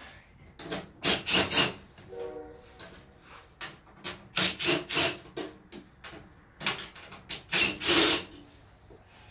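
Hands working the sheet-metal mud shield loose at a riding mower's rear wheel well: short bursts of scraping and knocking noise in several clusters, the loudest about a second in and again near the end.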